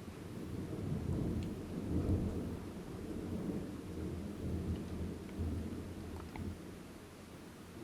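Long rolling rumble of thunder, loudest about two seconds in and dying away toward the end, over rain.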